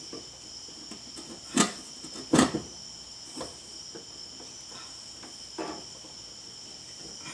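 Screwdriver clicking and knocking in the Dodge Omni's wiper linkage pivot as it reams out the replacement bushing so the arm will slide on. There are two sharp clicks about a second and a half and two and a half seconds in, then a few fainter knocks, over a steady high-pitched background ringing.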